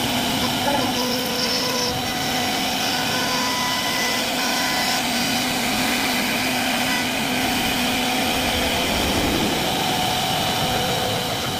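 CNC wood-carving router running steadily: a continuous machine whine with several held tones over an even rushing noise.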